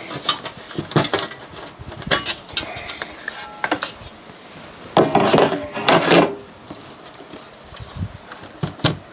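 Irregular clicks, clinks and scrapes of hard parts being handled while a DVD player's case is taken apart, with two longer scraping, rattling bursts about five and six seconds in.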